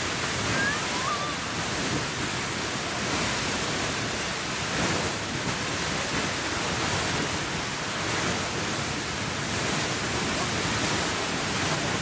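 Beehive Geyser erupting: a steady rushing hiss of its slender water column jetting from the cone and spray falling back, unbroken and even in level.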